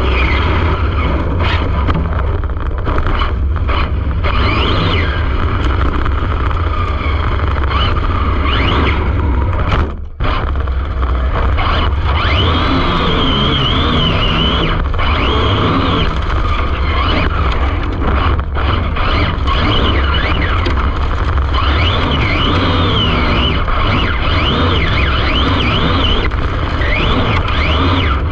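Arrma Infraction 6S RC car's brushless motor and drivetrain whining, rising and falling in pitch with the throttle, over a heavy wind rumble on an onboard camera. The sound drops out briefly about ten seconds in.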